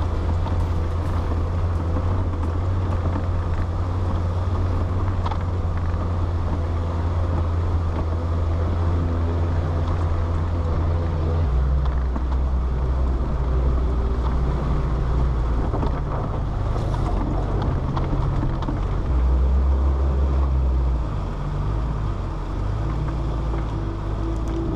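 Land Rover Defender engine running steadily as it climbs a rough, wet gravel and rock track, with a low drone. The engine note drops lower about halfway through and changes again near the end.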